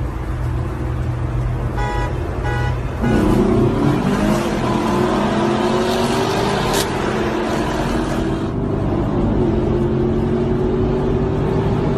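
Car engine running low, two short horn toots about two seconds in, then about a second later the engine revs up hard and is held at high revs, its pitch slowly climbing.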